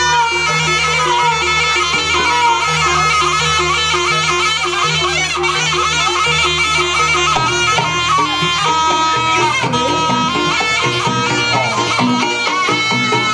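Jaranan music: a shrill double-reed shawm (slompret) plays the melody in long held notes over a steady beat of drums and gongs.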